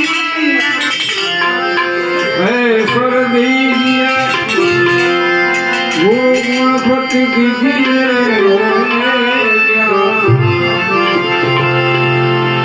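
Devotional bhajan music: a voice singing a dhun over sustained harmonium tones, with tabla keeping the rhythm.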